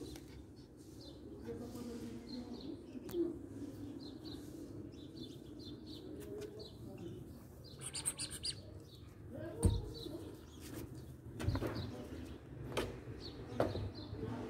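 Border collie puppy at play: faint, scattered high chirps and squeaks throughout. In the second half come several sharp knocks, as of the puppy bumping against a wooden kennel.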